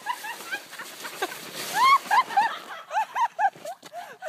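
A brief scraping hiss of a sled sliding down packed snow, then a high-pitched voice squealing in a quick run of short rising-and-falling yelps, about four a second.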